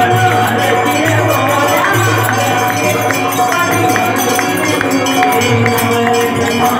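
Live devotional aarti music: long held melodic notes over jingling percussion that keeps a steady, even beat.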